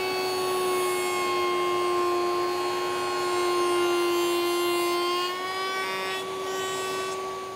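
Table-mounted router running with a steady high whine as its tongue-and-groove bit cuts the tongue on the end of a wooden rail. The pitch sags slightly in the middle, while the bit is under load in the wood, then picks back up.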